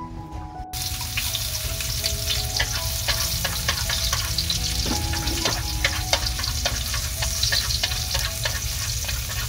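Garlic frying in hot oil in a pan: a dense, steady sizzle full of small crackles, starting abruptly about a second in. The garlic is being fried golden before fish sauce goes in.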